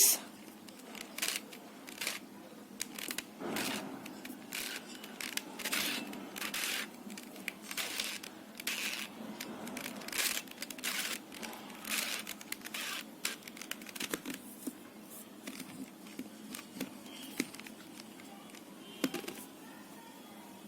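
A 4x4 Rubik's cube being turned by hand: short plastic scrapes and clicks of the layers rotating, in irregular runs of quick turns, with one sharper click near the end.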